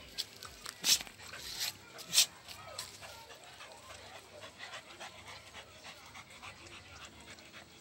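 Two dogs play-wrestling on a foam bed: panting breaths and scuffling, with two sharp loud noises about one and two seconds in.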